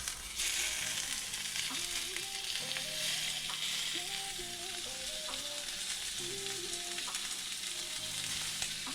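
Seasoned split lobster tails searing in hot oil in a frying pan: a steady sizzle that starts just after the beginning. Soft background music plays under it.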